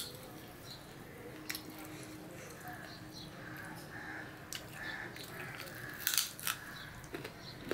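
Fingers mixing rice and curry on a steel plate with soft wet squishing and small clicks. About six seconds in a handful goes into the mouth, and there is a burst of loud wet mouth smacks and chewing.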